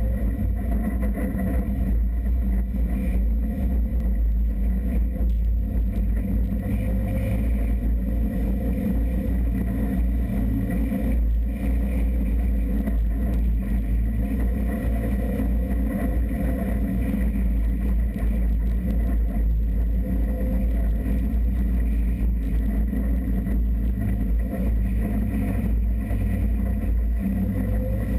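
Off-road vehicle driving steadily over sand, its engine running at an even pitch with a constant low rumble.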